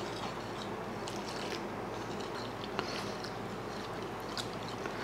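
Wire whisk beating flour and water into a thick batter in a plastic bowl: soft, quiet wet squishing with faint scattered ticks of the whisk wires.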